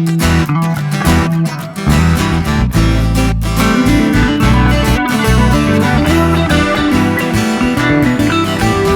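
Background music led by strummed guitar with a steady beat.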